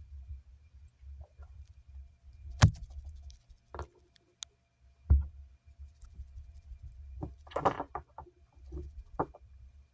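Scattered taps, clicks and light knocks of small objects being handled on a work surface, with a short cluster of rattling clicks about three quarters of the way through.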